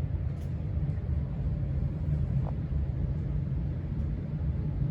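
Steady low rumble of a building HVAC system running, loud enough to cover the ceiling fan turning slowly on its lowest speed.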